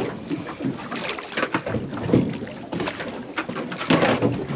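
A dhufish splashing and thrashing at the surface beside a boat's hull as it is drawn up on the leader, with water slapping in irregular bursts.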